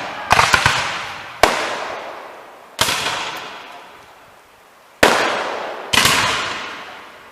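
Scattered black-powder musket shots from a reenactment skirmish, each sharp crack trailing off in a long echo. A ragged cluster of shots comes first, then single shots at irregular intervals, about five in all.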